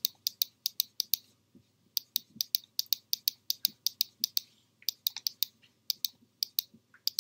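Rapid clicking at a computer: sharp clicks, about five or six a second, in runs broken by two short pauses.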